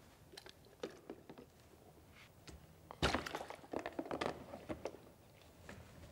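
Hard plastic clicks and knocks as the yellow lock gates of an AquaPlay toy canal system are lifted out of and slotted into the plastic channel. Scattered light clicks, then a flurry of knocks about three seconds in, the first of them the loudest.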